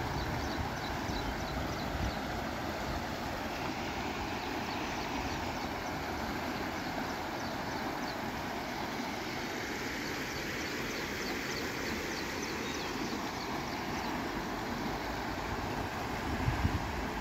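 Brown floodwater of a river in spate rushing across a low road, a steady, even rush of water.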